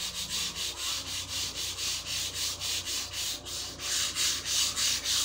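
Sandpaper worked by hand over a long moulded workpiece in quick, even back-and-forth strokes, a rhythmic hiss that gets louder about four seconds in.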